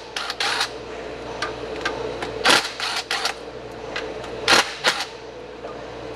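Hand ratchet clicking in several short spells as the 10 mm bolts holding an engine oil level sensor in the oil pan are worked loose, over a steady low shop hum.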